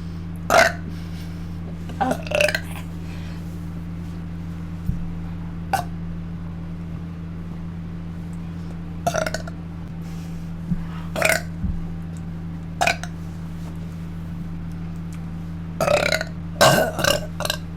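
A person burping: about a dozen short burps spread out, then several in quick succession near the end, over a steady low hum.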